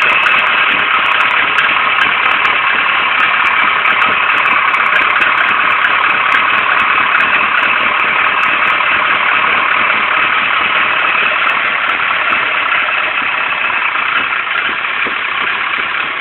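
Nissan 240SX's KA24DE 2.4-litre four-cylinder engine idling roughly.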